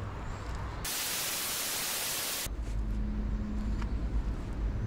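A burst of white-noise static, like a TV-static transition effect, starting about a second in and cutting off sharply about a second and a half later. A low steady rumble runs before and after it, with a steady hum joining once the static stops.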